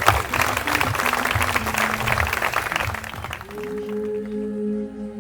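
Audience clapping after a speech, dying away about three seconds in, while soft music with long held notes comes up and carries on.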